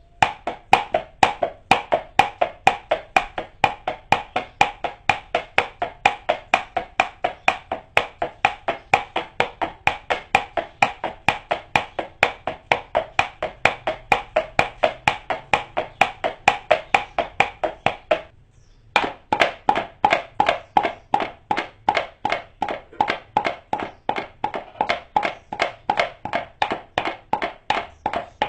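Imitation horse-hoof clip-clop sound effect: hollow clicks in a steady trotting rhythm of about three a second. They stop briefly about 18 seconds in, then resume.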